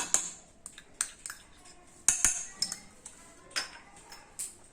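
A metal spoon clinking against a saucepan and dishes: several sharp clinks at irregular intervals, the loudest near the start and about two seconds in.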